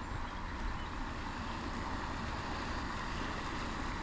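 Steady outdoor noise: wind buffeting the microphone with a low flutter over a constant hiss.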